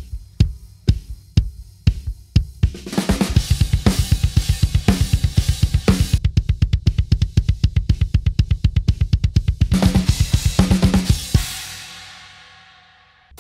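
Bass drum of a Yamaha Maple Custom kit, struck by felt beaters on a double pedal against a Remo Falam Slam patch. It opens with separate kick hits heard through the kick mic alone. Then the full kit comes in with cymbals and a fast, even double-pedal kick run, and it ends on a cymbal crash that rings out and fades.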